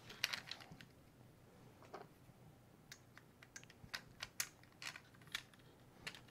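Hands handling a grey plastic piece holding small hardware: a scatter of faint, irregular clicks and light rattles.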